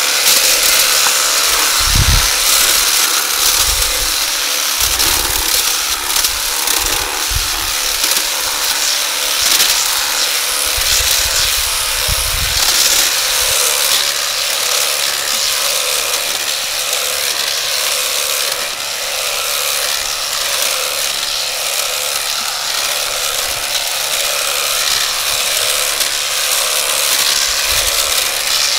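Makita DUH602 18 V LXT cordless hedge trimmer running steadily, its reciprocating blades cutting through hedge leaves and twigs, with occasional low thumps.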